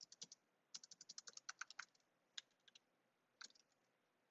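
Faint typing on a computer keyboard: a quick run of keystrokes in the first two seconds, then a few scattered key presses.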